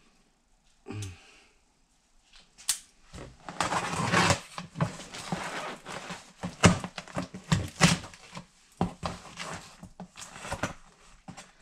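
Cardboard shipping box being opened and its packing handled: a busy, irregular run of rustles, scrapes and knocks starting about three seconds in.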